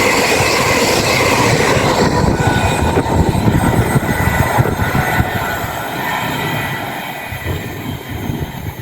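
East Midlands Railway Class 810 Aurora express train passing through the station at speed without stopping: a loud, steady rush of wheels on rail with a faint whine, dying away over the last few seconds as it recedes.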